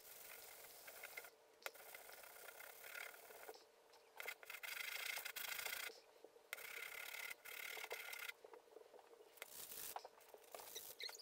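Steel cross peen hammer head rubbed by hand, face down, on a sheet of sandpaper laid flat on a bench: a faint scratchy rasping in stretches of one to two seconds with short breaks between, strongest about four to six seconds in.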